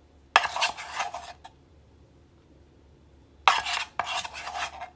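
A thin plastic bag holding chicken pieces and potato starch crinkling as it is handled, in two bursts: one of about a second a third of a second in, and a longer one from about three and a half seconds in.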